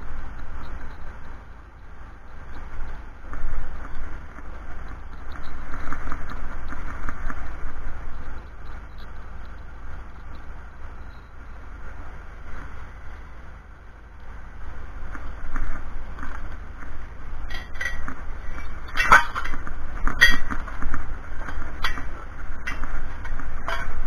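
Steady background rumble, then in the last several seconds a series of sharp metallic clinks, the loudest a little after two-thirds of the way through: steel bracket parts and hardware knocking together while being handled during assembly.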